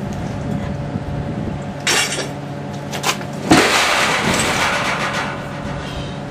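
A heavy boat hull section being slid out of the back of a van: a couple of knocks, then about three and a half seconds in a loud crash that trails off into a couple of seconds of rattling and scraping. A steady low hum runs underneath.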